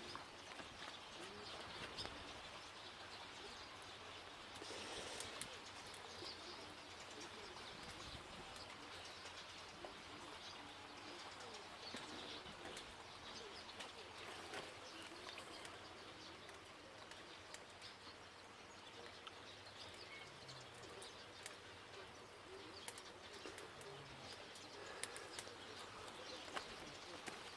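Faint, steady sizzling with scattered small crackles and pops from pork neck grilling over a wood-and-charcoal fire. A bird coos low a couple of times near the end.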